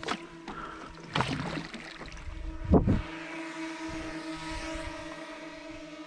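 Twin brushless electric motors of an RC racing boat running on 6S, blipped three times in short rising surges (the last, near three seconds, the loudest) over a steady electric hum.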